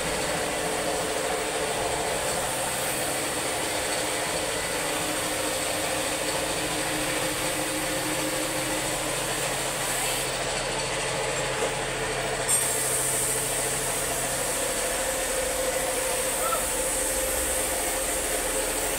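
Compressed-air paint spray gun hissing steadily as it sprays paint onto a car body, over a steady hum. The hiss pauses about ten seconds in for a couple of seconds, then resumes.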